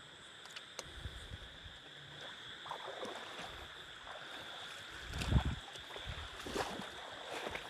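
Water splashing and sloshing in a shallow flooded field as a fisherman wades and chops at fish with a long knife, in several irregular splashes with the loudest a little past halfway.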